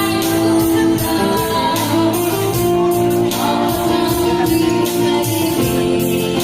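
Music with guitar and a steady beat, with singing at times, as from a live band or a sound system playing.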